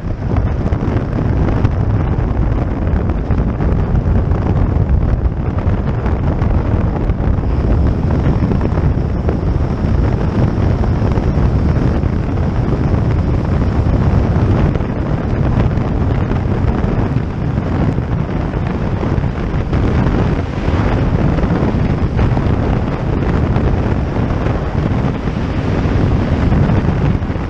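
Wind buffeting a helmet-mounted microphone over the steady drone of a flexwing microlight trike's Suzuki G13BB 1.3-litre four-cylinder engine, through the roll down the runway and the climb-out.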